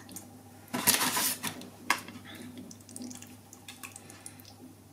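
Dry lasagna sheets being handled and laid into a ceramic baking dish, with one loud rustling scrape about a second in and a sharp click soon after, then faint rubbing as the sheets are pressed down.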